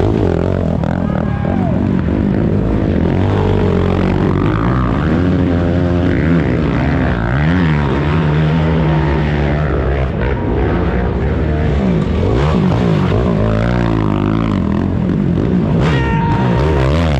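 Several racing ATV engines revving hard and passing one after another, their pitches rising and falling and overlapping.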